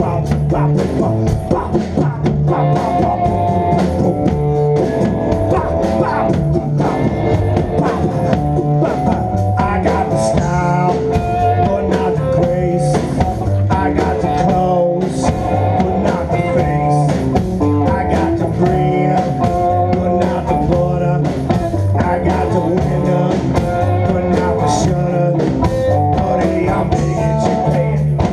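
Live band playing an instrumental passage of a blues-rock song, led by guitar.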